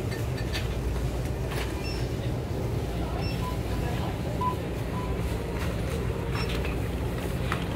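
Steady low rumble of store background noise at a supermarket checkout, with scattered clicks and knocks of goods and a cart being handled and a few short, faint beeps.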